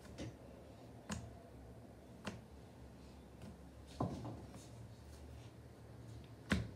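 Handling noise: a few scattered soft taps and clicks, the loudest near the end, over a faint low hum.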